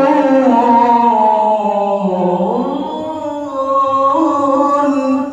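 A male qari reciting the Quran in melodic tilawah style, holding long notes and gliding between them. The pitch sinks about two seconds in and climbs again near the end of the phrase.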